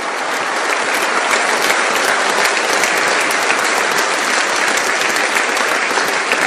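Audience applauding: many people clapping together, building up over the first second and holding steady after that.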